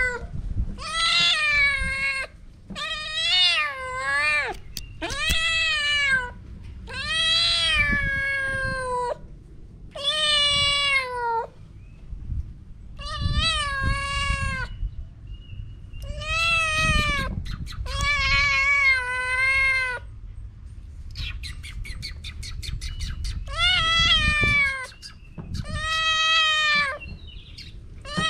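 Black kitten meowing repeatedly, about a dozen long calls, each rising and then falling in pitch. A quick run of fine clicks falls between calls about three quarters of the way through.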